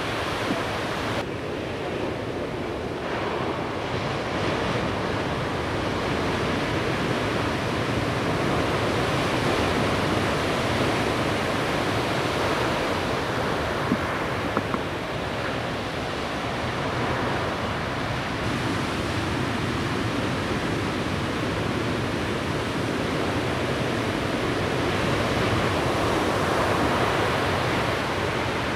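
Large ocean waves breaking, heard as a continuous, steady wash of surf noise.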